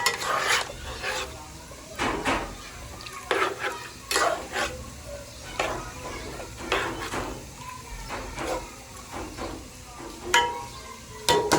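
A metal spatula scraping and stirring in a pan of frying chicken and bitter gourd, in separate strokes about a second apart over steady sizzling.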